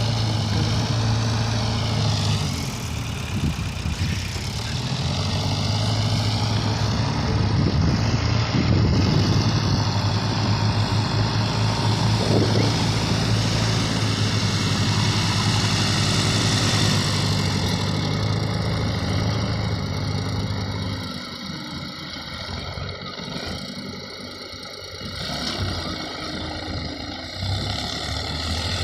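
Heavy machine's diesel engine running with a steady low drone. A higher whine dips and rises in pitch about two to four seconds in. The low drone falls away for a few seconds about three-quarters of the way through, then returns.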